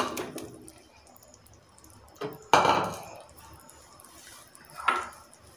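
Whole boiled eggs tipped from a plastic bowl into a pressure cooker of spiced water, plopping and splashing in. There is a sharp splash at the start, the loudest about two and a half seconds in, and another near the end.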